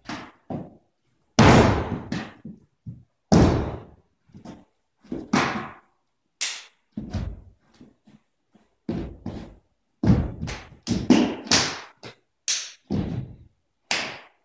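Irregular sharp thuds and slaps, some loud, come at uneven spacing throughout. They are the stamping footwork and strikes of a martial artist performing a Tai Chi Praying Mantis kung fu form.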